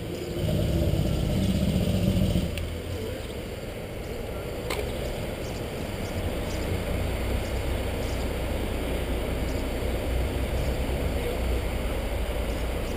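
Street traffic at an intersection: cars driving across make a steady low rumble, louder for the first couple of seconds, with a single sharp click about five seconds in.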